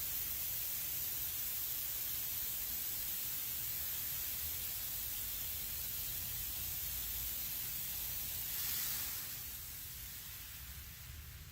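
Automatic car wash spraying water: a steady hissing spray that swells briefly near the end, then dies away.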